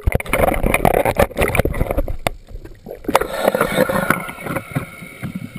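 Water sloshing and splashing around a camera in a waterproof housing as it dips at the sea surface, with frequent sharp knocks and clicks.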